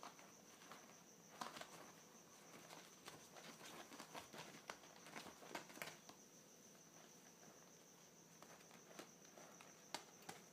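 Faint scratching, rustling and small ticks of a kitten's paws and claws on a leather-look cushion cover, over a faint steady high-pitched whine.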